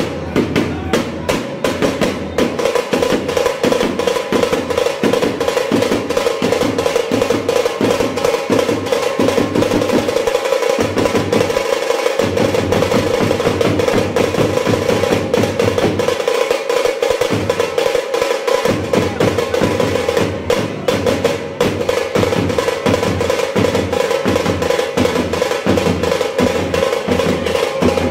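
A tasa drum ensemble plays rapid, continuous stick strokes in a fast roll, over a steady ring from the drumheads. Deeper drum beats run underneath and drop out briefly about ten seconds in and again about sixteen seconds in.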